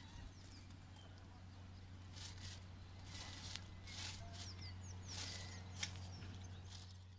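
Faint rustling of a clear plastic bag and light knocks of tent poles being handled and packed, mostly in the middle seconds, with small birds chirping in the background.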